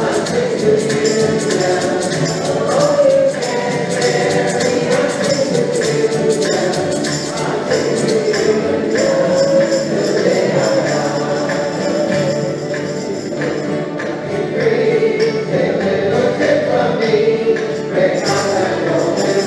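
A group of amateur voices singing a folk song together in unison, accompanied by several strummed acoustic guitars keeping a steady beat.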